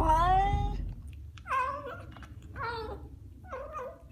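A cat meowing: one long drawn-out meow that ends about a second in, then three shorter meows about a second apart.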